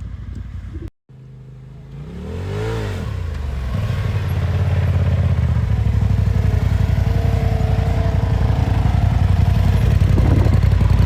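Off-road vehicle engine: after a cut about a second in, it revs up and back down once, then runs steadily under load, growing louder, with a faint whine above it.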